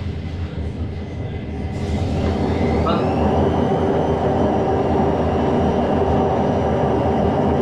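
Belt-driven washing machine running, its motor and drum spinning up: a steady mechanical hum with a high whine that rises about two seconds in and then holds level.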